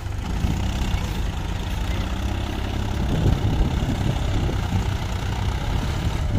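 Diesel tractor engines running steadily, the nearest a Mahindra 475 DI, getting a little louder around three seconds in.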